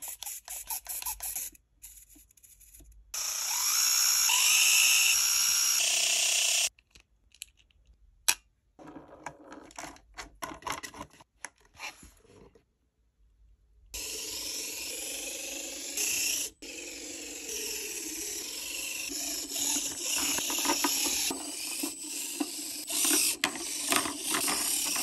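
Micro 1:64-scale RC car's small electric motor and gears whining, rising and falling in pitch as it is driven, in stretches with pauses between. Small clicks and taps near the start.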